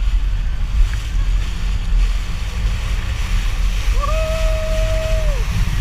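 Yamaha WaveRunner jet ski running at speed, with a low rumble, water rushing past and wind buffeting the microphone. About four seconds in, a rider gives one long held call lasting over a second.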